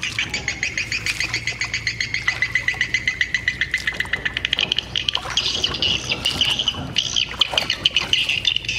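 A rapid, steady trill of high chirps, many to the second, from wildlife in the wet field. About halfway through, a higher chirping takes over.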